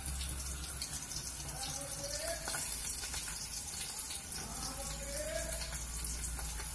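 Shallots, garlic, ginger and curry leaves frying in hot oil in an aluminium pot: a steady sizzle with scattered small crackles and pops.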